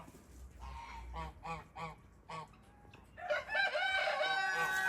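Farmyard poultry calling: a quiet run of short, evenly spaced clucking calls, then a loud, long drawn-out rooster crow starting about three seconds in.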